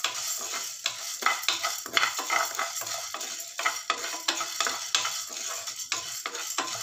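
A wooden spatula stirs toor dal and urad dal roasting in a non-stick frying pan. The lentils rattle and scrape across the pan in many quick small clicks over a steady hiss.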